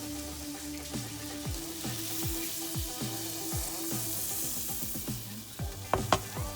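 Melted butter sizzling and bubbling in a hot skillet, a steady hiss. Near the end there are two sharp knocks, louder than the sizzle.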